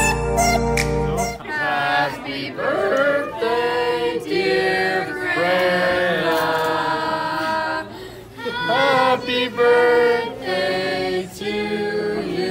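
Background music cuts off about a second and a half in, then a group of people sing together without instruments, with short breaks between phrases.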